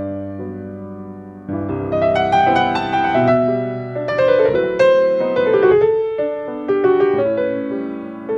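Yamaha grand piano playing a solo tango: a chord rings and fades for the first second and a half, then louder phrases of quick melodic runs over bass notes, with another chord fading near the end.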